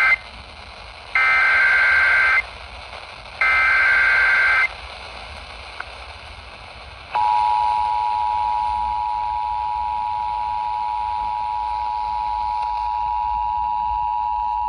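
Emergency Alert System header: the end of one buzzing two-tone data burst, then two more in quick succession, each about a second long. A few seconds later the EAS two-tone attention signal starts, a steady, unwavering alarm tone that announces the flash flood warning that follows.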